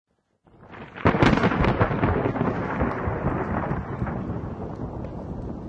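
A loud crackling crash about a second in, rolling into a long low rumble that slowly fades.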